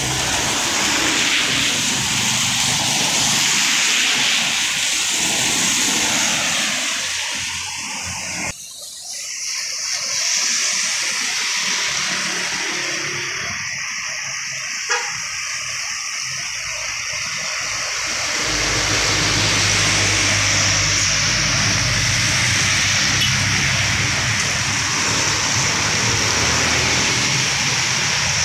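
Road traffic on wet asphalt: cars and motorcycles passing, tyres hissing on the wet road over their engines. The hiss drops away abruptly about a third of the way through, and a steady low engine rumble builds in the second half.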